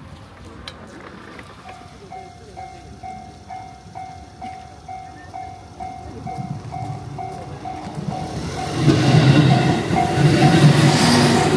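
Level-crossing warning bell starts ringing about two seconds in, a steady electronic ding repeating about twice a second. Near the end a train comes through, its loud rumble on the rails swelling over the bell.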